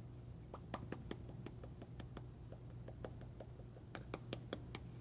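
A run of light, irregular clicks and taps scattered through, thickest about four seconds in, over a low steady hum.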